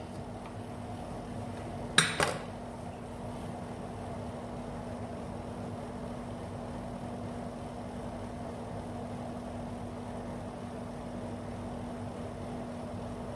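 Steady low room hum with one sharp click about two seconds in.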